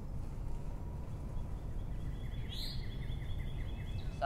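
Steady low background rumble of room tone. About halfway through, a small bird gives a faint, rapid chirping trill with one quick upward-sweeping note.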